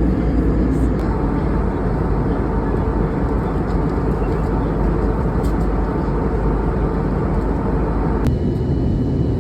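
Steady cabin noise of an Airbus A320neo airliner in flight: a continuous rush of engine and airflow noise. About eight seconds in, the sound changes suddenly, its higher part dropping away and a faint steady high tone coming in.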